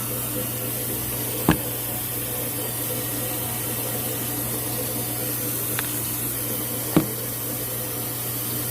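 Tap water running steadily into a sink, with two sharp knocks of items being handled, about a second and a half in and again about seven seconds in.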